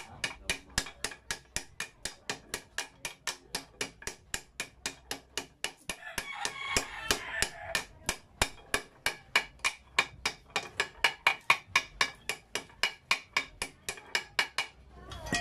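A hammer striking a steel drift rod in quick, even metal taps, about four a second, driving a ball bearing into its seat in a Kawasaki HD3 125 aluminium crankcase half. The tapping stops shortly before the end.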